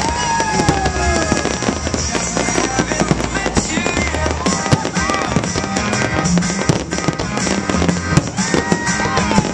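Fireworks display: aerial shells bursting in rapid succession with booms and crackling, and whistles falling in pitch near the start and again midway.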